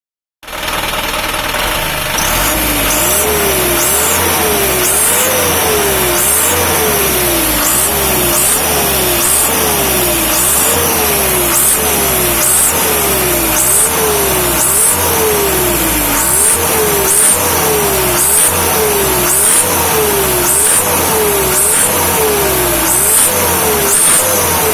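Vehicle engine revved up and down over and over through an exhaust fitted with a flexible pipe, which gives it a turbo-like 'ngir nyir' whistle like a Mitsubishi Canter turbo truck. The whistle rises and falls in pitch about once a second over a steady engine rumble, with a short high chirp on each rev.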